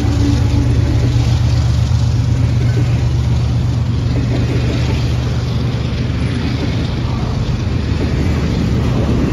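Norfolk Southern diesel-electric locomotive engines running under load with a deep, steady drone that fades as the locomotives move off. It is joined by the rumble of loaded double-stack intermodal cars rolling past on the rails.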